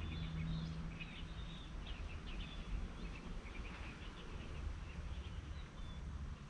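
Small birds chirping in quick, irregular bursts over a low steady hum.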